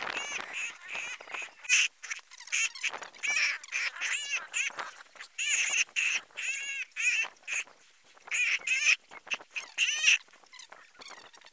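Repeated short, high-pitched animal cries, about a dozen, each rising and falling in pitch, which stop shortly before the end.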